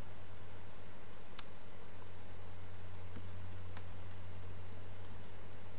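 A few separate computer mouse clicks over a steady low hum.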